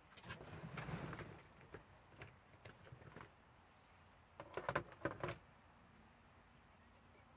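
Camping gear being handled in a pickup's bed: rustling and light knocks, then a quick run of sharp clicks and knocks about four and a half seconds in, the loudest part, as things are set down and fitted into place.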